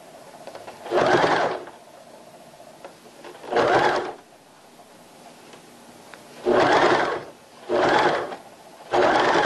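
Domestic electric sewing machine stitching a pants-cuff seam in stop-start runs: five short bursts of stitching, each about half a second to a second long, with pauses between as the fabric is repositioned.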